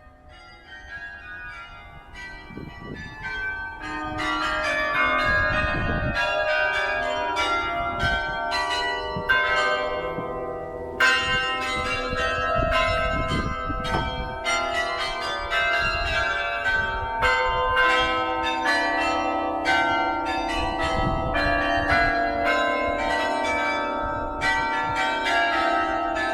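St. Pierre Cathedral's bells ringing: many overlapping bell strokes at different pitches, building up over the first few seconds into a dense, continuous peal.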